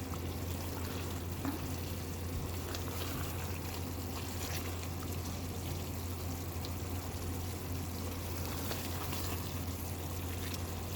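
Kali mirchi chicken sautéing in a pan on high heat, a steady sizzle with faint scattered crackles as the last of the liquid cooks off, over a constant low hum.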